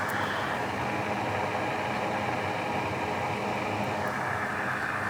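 Steady hiss of moving air from a fan-driven blower running on an electronics repair bench.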